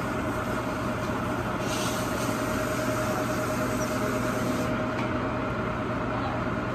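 Salon hood hair dryer running: a steady blowing noise with a constant low hum and a steady whine.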